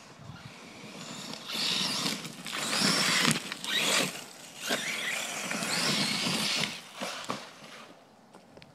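Radio-controlled HPI Vorza truck on Badlands 3.2 monster-truck tyres driving hard over loose dirt, its tyres churning and throwing dirt in repeated surges. The noise fades out near the end.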